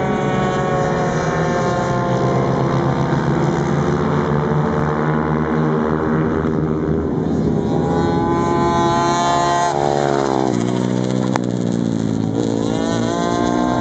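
Small mini-motorcycle engines revving hard as the bikes lap a kart track, several at once, their pitch rising and falling with the throttle. About ten seconds in, the pitch drops steeply and then climbs again.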